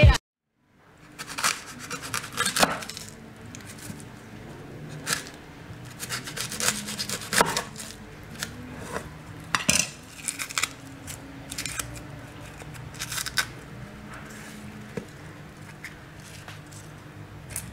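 Irregular knocks, clicks and scrapes of food preparation: a large kitchen knife cutting through a whole garlic bulb on a wooden cutting board, and garlic bulbs being set down on a dark roasting tray of halved tomatoes. A faint steady hum runs underneath.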